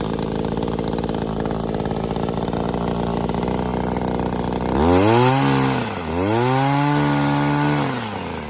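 Echo 25.4cc gas pole saw's two-stroke engine idling steadily, then revved up twice about five and six seconds in, the second rev held for nearly two seconds before dropping back to idle.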